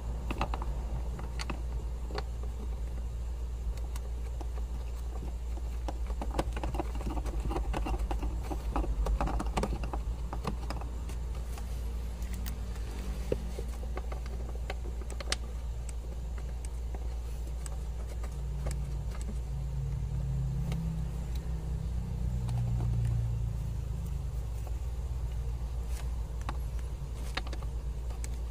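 Hands fitting a car's aircon blower fan assembly back under the dashboard and handling its wiring: scattered plastic clicks and rustling, busiest about a quarter of the way in, over a steady low hum.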